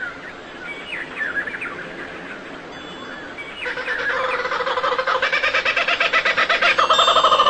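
Small birds chirping with quick rising and falling notes. About halfway in, a louder, rapidly pulsing bird call with several held pitches takes over, like a hen cackling.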